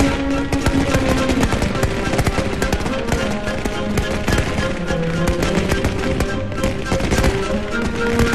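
Slow music with long held notes, over a dense, rapid crackle of firecrackers going off.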